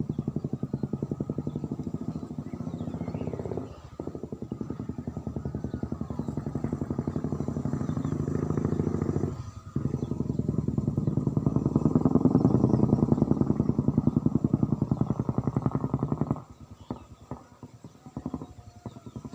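Motorcycle engine running with a fast, even firing beat, dipping briefly twice and picking up again, then shut off about sixteen seconds in. A few light clicks follow.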